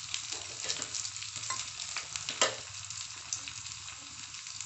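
Tadka sizzling in hot oil in a small pan: cashews, urad dal, cumin and freshly added dry red chillies frying with a steady crackling hiss. A spoon stirring clicks against the pan, with one louder clack about two and a half seconds in.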